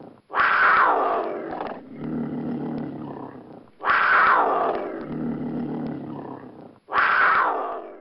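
Cougar (mountain lion) calling: three loud calls, each falling in pitch, with a lower, quieter drawn-out sound between them.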